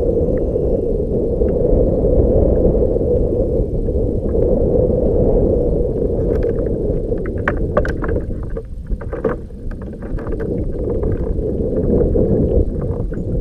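Steady low rushing noise of a fishing boat moving on the water, with a run of sharp clicks and knocks between about six and ten seconds in.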